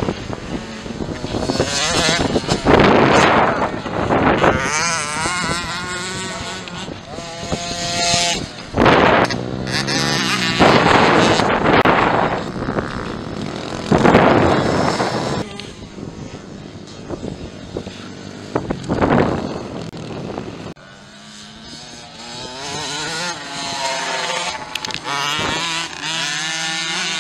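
Small-displacement dirt bikes (mini motos and 65cc motocross bikes) racing past, engines revving, with the pitch rising and falling as the riders work the throttle. There are several loud close passes, and it is quieter near the end.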